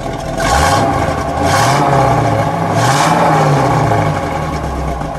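1967 Oldsmobile Toronado's 425 cubic-inch V8 revved twice from idle, rising in pitch, dipping, rising again, then dropping back to idle about four seconds in. It is heard at the tailpipes of a side-to-side exhaust with a single transverse muffler and no resonators.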